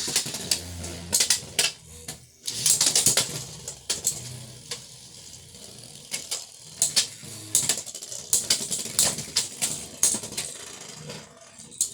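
Beyblade X top (Knight Mail) spinning in a plastic stadium, clattering against the walls with many irregular sharp clicks and knocks, right after a loud launch at the start.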